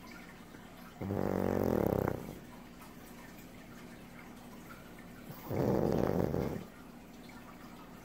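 A sleeping pug snoring loudly: two snores, each a little over a second long, about four seconds apart.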